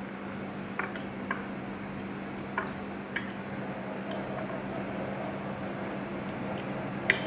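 A metal spoon clinking against a plate while eating: scattered light, sharp clinks, the loudest one near the end, over a steady low hum.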